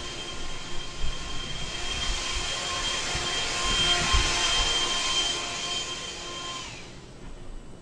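An electric appliance motor, of the vacuum-cleaner kind, running with a steady rushing noise and a high whine, then switched off near the end, its whine sliding down as it stops.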